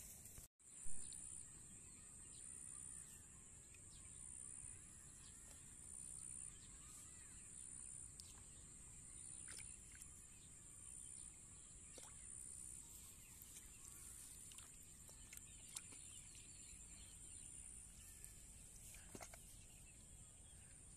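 Near-quiet outdoor ambience: faint splashes and squelches of hands groping in shallow muddy water, under a steady faint high-pitched buzz that pulses a little more than once a second for the first half. One sharp knock about a second in.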